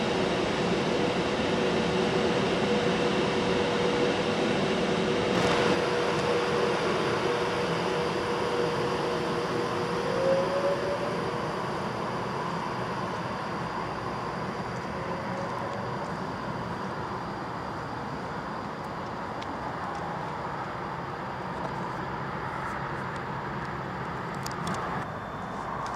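Class 390 Pendolino electric train in the station: a steady electrical hum over rail noise, with short rising whines about ten and fifteen seconds in, then the sound drops a little lower.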